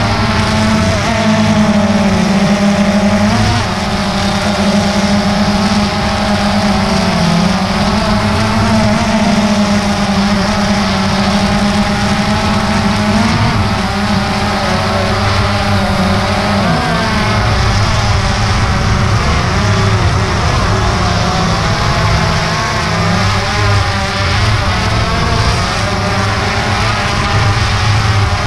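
DJI Phantom 2 quadcopter's motors and propellers running, heard close up through its own mounted camera: a loud, steady buzz whose pitch wavers up and down as the throttle shifts.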